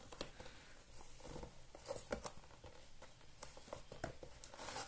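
Hands working the foam insole out of a Ventela canvas sneaker: faint, scattered rustling and scuffing with small clicks.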